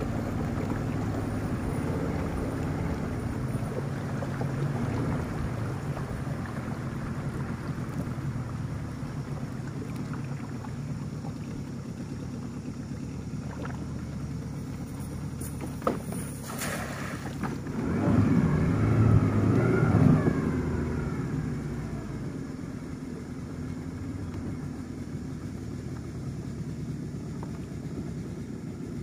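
A small boat's motor runs low and steady as a cast net is thrown from the bow. A sharp snap comes about halfway through, then a louder rushing splash as the weighted net lands and sinks, fading back to the low running of the motor.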